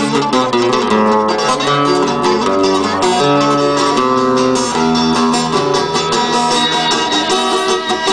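Live Greek folk dance music, an instrumental passage between sung verses: plucked string instruments strumming a steady rhythm under a melody of held notes.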